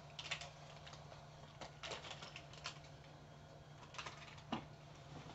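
Faint, scattered clicks and crinkles of plastic candy wrappers and snack packaging being handled, a few short crackles at a time, over a steady low hum.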